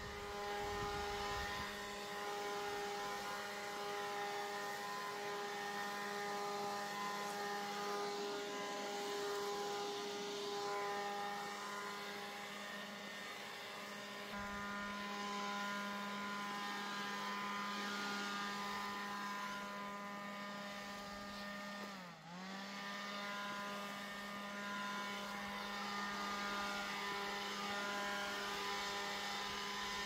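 A motor-driven garden leaf machine running with a steady whine and rush of air. About two-thirds of the way through, its pitch drops sharply for a moment and comes straight back up, as when the trigger is briefly eased and pressed again.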